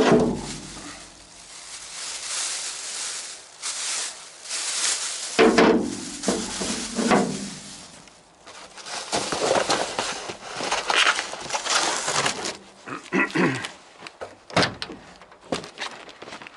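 Clear plastic bag crinkling and rustling as a steering wheel is slid into it and handled on a steel truck bed, with a few knocks and thunks. The loudest knocks come right at the start and again about five seconds in.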